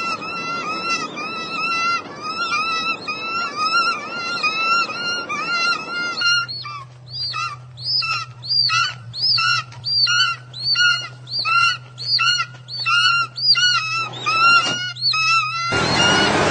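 An animal's high-pitched calls, repeated over and over: a quick, unbroken string at first, then separate calls about one and a half a second, over a steady low hum.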